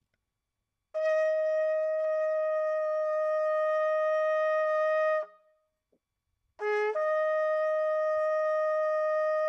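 Shofar blown in two long blasts. The first is a steady note held about four seconds that cuts off. After a short gap, the second starts with a brief lower note and jumps up to the same held note.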